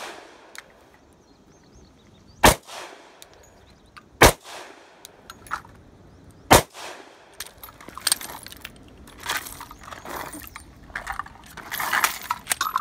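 Three shots from a Glock 29 10mm subcompact pistol, about two seconds apart, each with a short echo. From about halfway there is a run of small metallic clicks and rattles as the pistol is handled.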